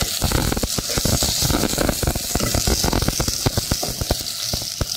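Raw sliced onions sizzling in hot cooking oil in a pan, just added and still pale, with a steady hiss and many quick crackles and pops as they are stirred with a wooden spatula.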